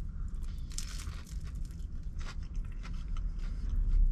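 Biting into a vegetable spring roll and chewing it, the pastry crunching in a run of short crackly crunches, over a low steady rumble that swells near the end.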